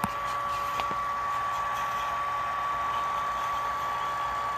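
A home-built water-cooled electrode rig running: a steady high-pitched whine over an even hiss, with a couple of sharp clicks in the first second.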